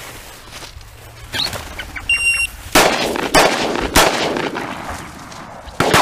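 Taurus Judge revolver firing .410 shotgun shells: three sharp shots about half a second apart, starting nearly three seconds in, then a fourth near the end. A short electronic beep from a dog's beeper collar sounds just before the shots.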